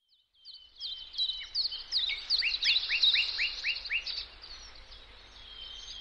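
Small birds singing: a rapid run of high chirps and quick sweeping whistles that starts about half a second in, is busiest for the next few seconds, then thins out and grows fainter near the end.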